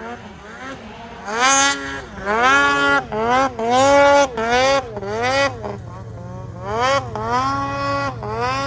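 Snowmobile engine revved up and down over and over, about once a second: each rev rises, holds briefly and drops back. A steadier low engine hum runs under it from about halfway through.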